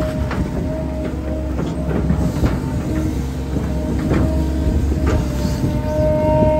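Volvo hydraulic excavator working, heard from the cab: the diesel engine runs steadily under load, with a whine that comes and goes as the hydraulics move the boom and bucket and grows strongest near the end. Several sharp clunks are scattered through it.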